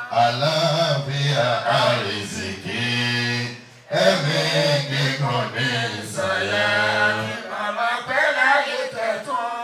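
Chanted singing: a voice holding long, wavering notes, with a short break about four seconds in.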